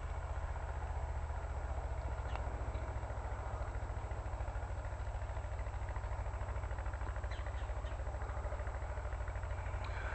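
A steady, low mechanical hum with a fast, even throb.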